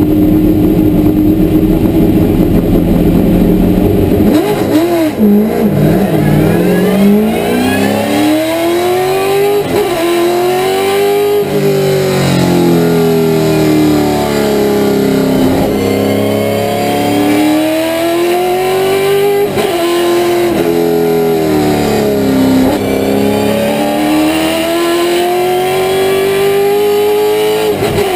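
Holden Commodore VE V8 Supercar's V8, heard from inside the cockpit. It holds steady revs for about four seconds, then the car pulls away and the engine note climbs and drops again and again under hard acceleration.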